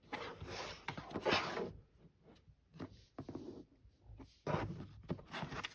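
A cardboard Blu-ray digibook being slid and turned over on a tabletop by hand, making scraping and rubbing sounds in a few bouts. The longest bout comes first and another runs near the end.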